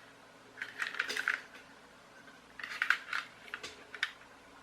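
Hard plastic clicking and rattling as a toy car and its wired hand controller are handled, in two short bouts of quick clicks.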